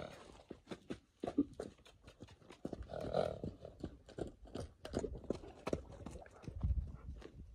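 Hooves of a Devils Garden mustang thudding and scuffing on a dirt round-pen floor as the horse trots around the handler, in irregular knocks. A short breathy sound comes about three seconds in.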